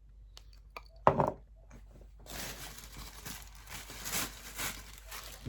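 Rustling and crinkling of packaging as items are handled in a box, after a single knock about a second in.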